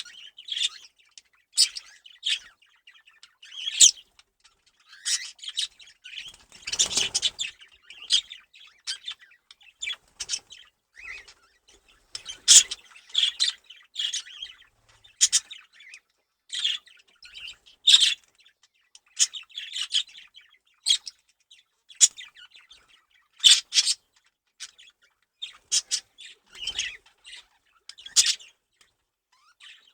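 Budgerigars chattering: a busy run of short high chirps and warbles with no pause, with one brief flurry of noisier sound about seven seconds in.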